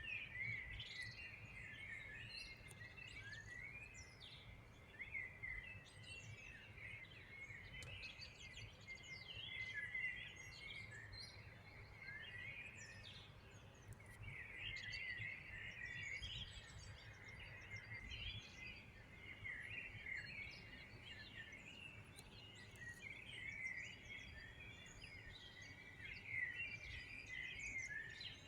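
Many small birds chirping and singing at once in a continuous chorus of quick overlapping chirps and trills, with a faint low rumble underneath.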